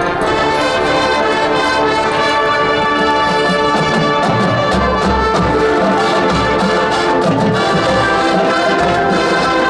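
Marching band playing full: massed brass holding sustained chords over drumline and low drums.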